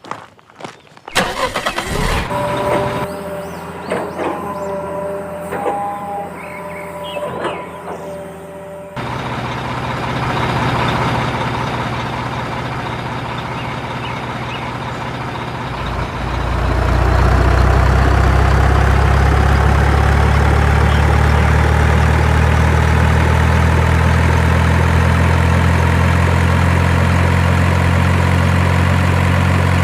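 Tractor engine running steadily at idle, becoming louder about halfway through, with a slowly rising whine above the low hum. Before the engine comes in there are a few seconds of short tonal notes and knocks.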